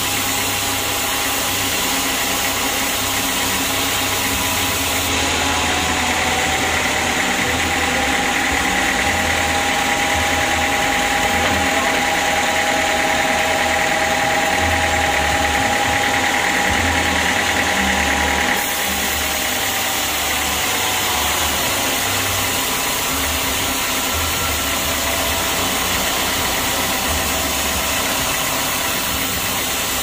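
Band sawmill running and its blade sawing lengthwise through an acacia log: a loud, steady mechanical drone with a whine over it. The whine is stronger from about five seconds in, then the sound shifts abruptly after about eighteen seconds.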